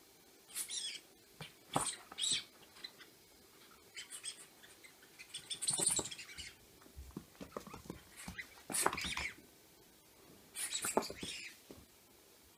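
Orange squeaky rubber chicken toy being squeezed, giving short high squeaks every second or two.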